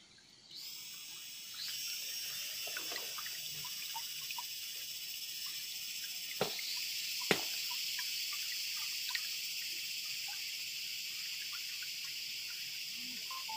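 High-pitched, steady chirring of insects that starts about half a second in and grows louder a second later, with two sharp clicks near the middle.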